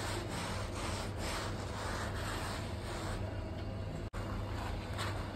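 A plastic-covered hand and a flat tool rubbing and smoothing a coarse grated-coconut sweet mixture on a plastic sheet, a dry scraping in repeated strokes, about two a second. A steady low hum runs underneath.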